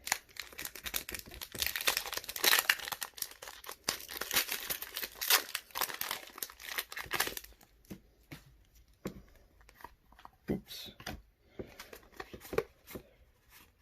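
A Pokémon card booster pack's foil wrapper being torn open and crinkled for about seven seconds, followed by quieter, sparse rustling and clicking of cards being handled.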